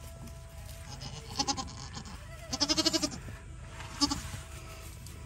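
Goats bleating: a few short bleats, the longest a quavering one about two and a half seconds in.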